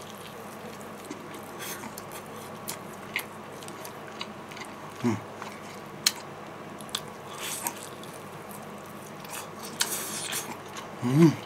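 Close-up eating of Kentucky Fried Chicken: bites into the crispy fried coating, then chewing, with scattered small crackles and clicks. A short hum from the eater comes about five seconds in and again near the end.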